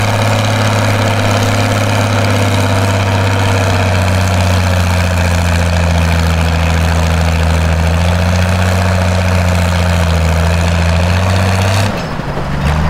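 Farmall tractor's diesel engine running hard under heavy load while pulling a weight-transfer sled, a loud steady note that dips slightly in pitch a few seconds in. The black exhaust smoke shows it is pulling under full load. The steady note breaks off abruptly near the end.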